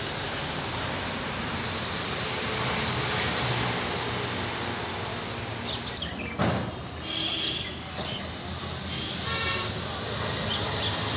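Steady outdoor background noise, with a short louder noise about six and a half seconds in.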